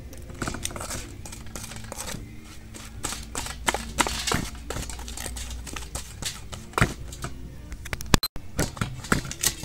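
A plastic spoon scraping and knocking against a stainless steel bowl while damp powdered fishing bait is stirred and pressed into dough, as a run of irregular clicks and scrapes.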